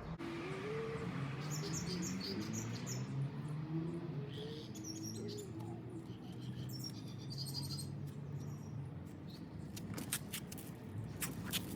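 Small birds chirping in short high bursts, over a distant low, wavering voice. A few sharp clicks near the end.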